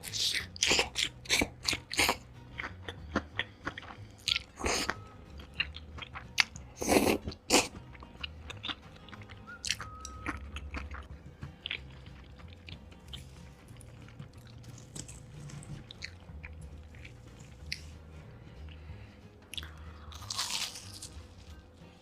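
A person eating crunchy food, with crisp crunching bites and chewing. The crunches come thick and loud for the first eight seconds or so, then thin out into quieter, sparser chewing.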